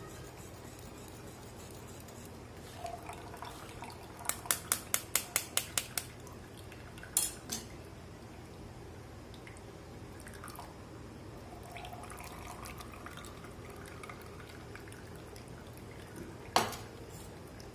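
A steel spoon tapping rapidly against a stainless-steel mesh strainer: about nine quick metallic taps in under two seconds, a few more knocks a second later, and one sharper clink near the end.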